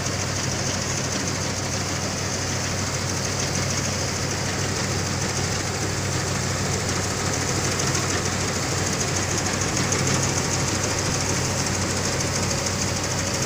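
Fahr MDL combine harvester running steadily while cutting and threshing wheat: a constant engine drone with the hiss and rattle of its working machinery, growing a little louder as it comes closer.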